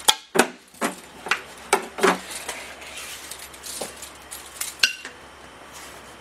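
Sharp metallic clinks and clanks as an anti-chatter belt is stretched and fitted around a brake drum on a brake lathe: about six in quick succession at the start, then handling noise and one more clink near the end.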